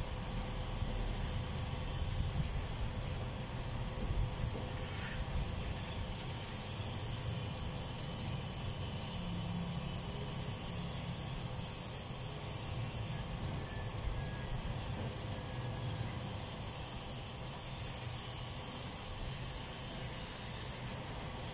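Outdoor ambience: a steady high insect drone over a low rumble, with scattered faint short chirps.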